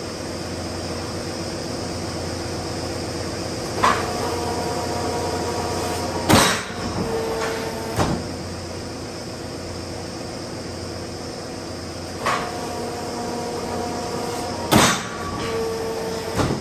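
Metalworking machinery handling steel bar, running with a steady hum and going through a repeating cycle of metal clanks and bangs. The cycle comes twice, about eight seconds apart, each time a clank, then the loudest bang, then another clank, with short ringing tones between them.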